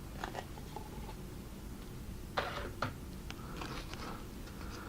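Faint rustles and light clicks of trading cards being handled and slid through the hands, a handful of short separate sounds, the most distinct about halfway through.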